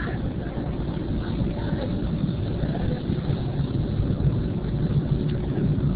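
Subway train running, a steady low rumble of the moving car heard from inside it.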